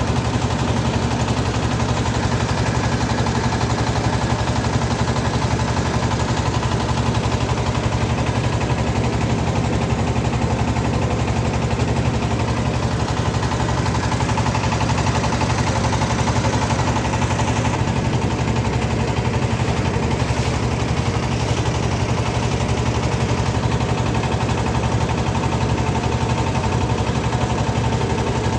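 Engine of a motorized wooden river boat running steadily at close range with a fast, even pulse.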